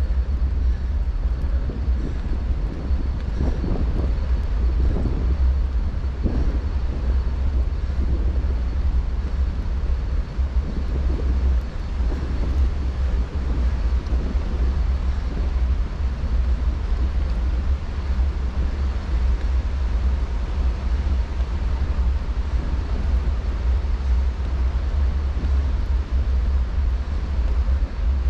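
Steady low rumble of wind buffeting an action camera's microphone during a bike ride, with a fainter hiss above it.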